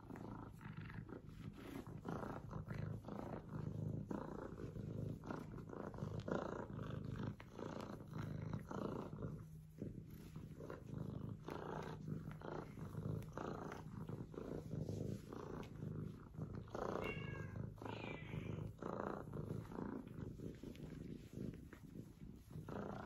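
F2 Savannah kitten purring steadily, the purr swelling and easing in a regular in-and-out cycle about once a second, with short rustles throughout.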